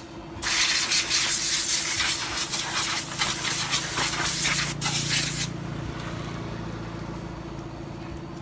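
Compressed-air blow gun hissing in a long blast as it blows water off a freshly washed motorcycle, with a brief break right at the start; it cuts off about five and a half seconds in, leaving a steady low hum.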